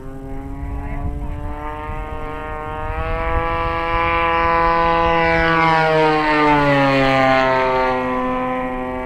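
Desert Aircraft DA-35 single-cylinder two-stroke gas engine of a 73-inch RC aerobatic plane flying past, its note growing louder and then dropping in pitch as it goes by, about six seconds in.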